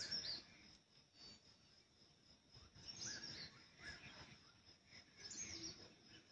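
Birds chirping faintly outdoors: short high calls come in clusters near the start, about three seconds in and again around five and a half seconds, over a thin steady high background.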